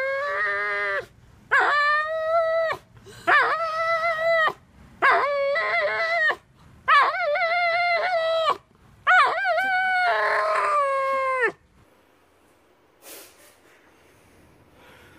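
Dog vocalizing during a convulsive seizure: about six long, howling cries in a row, each a second or two long with short breaks, the last ending about twelve seconds in. Vocalizing like this is one of the signs of a seizure.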